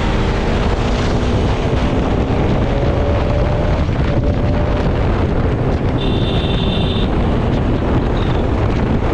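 Wind rushing hard over an action camera's microphone on a motorcycle at highway speed, with the bike's engine faintly underneath, its pitch rising slowly. A brief high tone sounds for about a second, about six seconds in.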